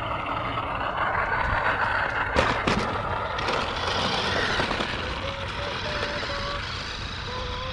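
Battery-powered RC monster truck driving across concrete, its electric motor whining and its big rubber tyres rolling and scrubbing on the rough surface, with a couple of sharp knocks about two and a half seconds in.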